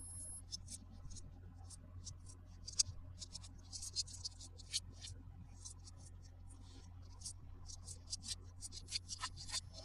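Plastic toy pieces and packaging being handled in an unboxing: a faint, irregular run of small clicks, crinkles and scratches, several a second.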